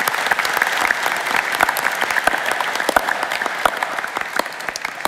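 Audience applause in a large hall: many people clapping steadily, thinning out near the end.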